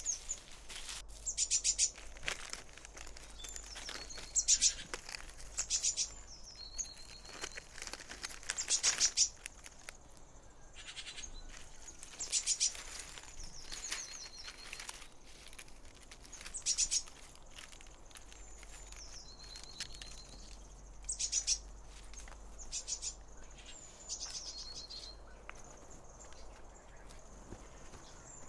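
Birds calling over and over: rapid high trills every few seconds, mixed with short high whistled notes.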